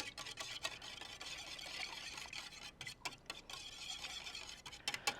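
A utensil stirring a milk-and-egg mixture in a mixing bowl, with a run of quick, irregular clicks against the bowl.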